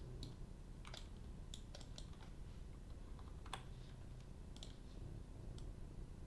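Faint, irregular clicks of a computer keyboard and mouse, a handful spread over several seconds, over a low steady background hum.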